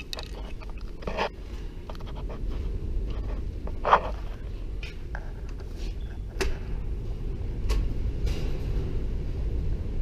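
Footsteps and handling knocks and scrapes over a steady low rumble, with a sharp click about four seconds in and another about six and a half seconds in, as a metal door is worked open by its handle.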